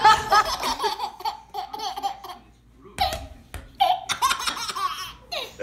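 A baby laughing in runs of high giggles, with a short pause about halfway and a couple of knocks just after it.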